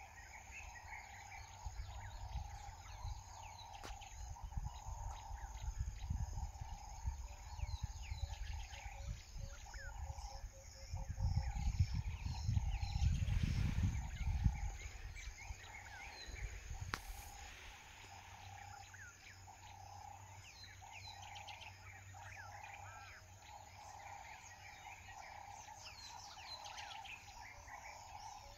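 Bush ambience: many small birds chirping over a steady, pulsing trill, with a low rumbling noise that swells for a few seconds in the middle.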